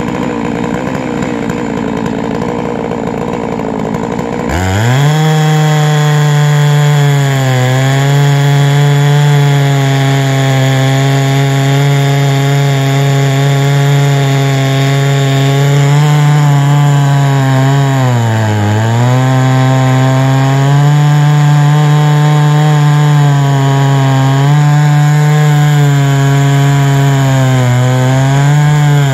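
Huztl MS660-clone two-stroke chainsaw milling a big cherry log lengthwise. It runs lower for the first few seconds, then opens up to a steady full-throttle whine in the cut about four and a half seconds in. Its pitch sags briefly twice as it loads down, once past the middle and again at the very end.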